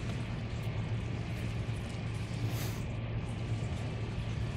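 Steady low hum with an even hiss, the room's background noise, with a brief soft noise about two and a half seconds in.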